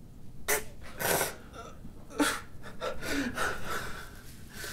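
A man sobbing in a series of ragged, gasping breaths and sniffs.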